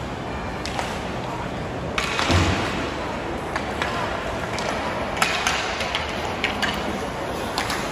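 Ice hockey game sounds: skates scraping on the ice and sharp clacks of sticks and puck, with a louder thud about two seconds in. Distant voices carry across the rink.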